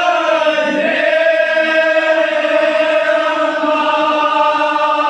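Men's voices chanting a Kashmiri marsiya (mourning elegy) in the Pahalwani style, holding one long sung note.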